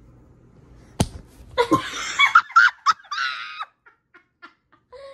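A sharp smack about a second in, a toddler's hand slapping a person, then about two seconds of a woman's bursts of laughter.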